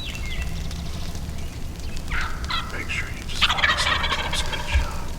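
Wild turkey toms gobbling: a short gobble about two seconds in, then a longer, louder gobble about three and a half seconds in.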